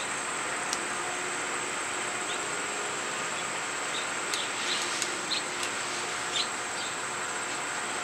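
Steady outdoor hiss with a thin, constant high-pitched tone. A few faint light clicks and ticks come a little after halfway, as tiny screws and plastic grip-cover parts are handled on the handlebar.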